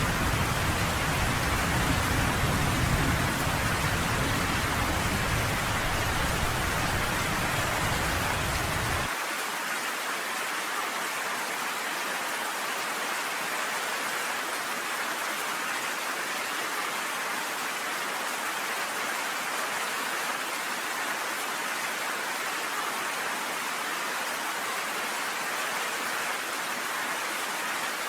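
Steady rain hissing, with a low rumble underneath that cuts off suddenly about nine seconds in.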